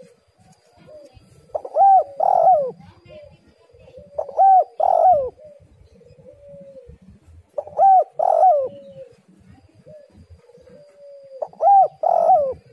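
Spotted dove cooing: four repeated call phrases a few seconds apart, each two loud coos that rise and fall in pitch followed by a softer, lower trailing note.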